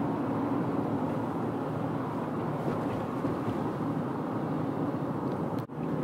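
Steady road noise inside a moving car's cabin, a low even rumble and hiss of the car driving at speed. It cuts out for an instant near the end.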